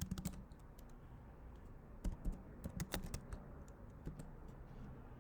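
Typing on a computer keyboard: scattered, irregular keystrokes as a command is entered, with a few louder key taps about two and three seconds in.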